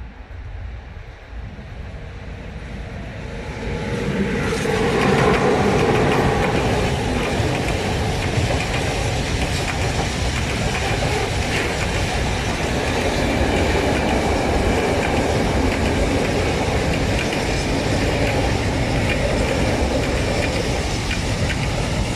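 Freight train of open-top goods wagons passing at close range. The noise builds over the first four seconds or so, then holds steady and loud as wagon after wagon rolls by.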